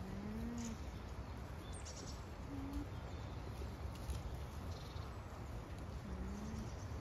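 Three short, low, smooth animal hums a few seconds apart, each rising slightly in pitch, over a steady low outdoor rumble with a few faint high bird chirps.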